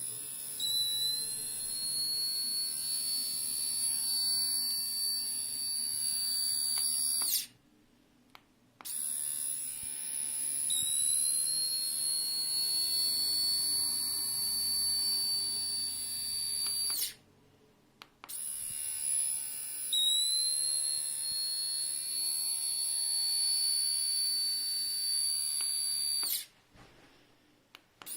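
Xiaomi electric shaver running with a high-pitched whine, switched on three times for about seven to eight seconds each with short pauses between; the pitch rises slightly just after each start as the motor spins up.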